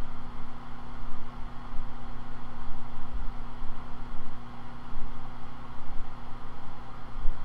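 A steady low mechanical hum with a rushing noise, like a motor or fan running, with a few dull low bumps.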